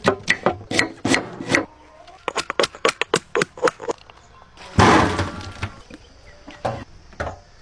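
Knife chopping green chillies on a wooden cutting board, quick sharp strikes about four to five a second, then a second run of chops. About five seconds in comes one louder, longer noisy impact, followed by a few single knocks.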